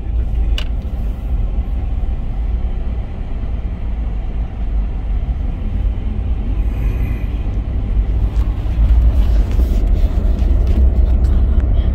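A car driving, heard from inside the cabin: a steady low road and engine rumble that grows somewhat louder after about eight seconds.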